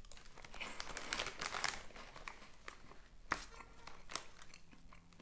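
Snack packet of sugar rusks crinkling and rustling as it is handled, with scattered irregular crackles and a few sharper clicks.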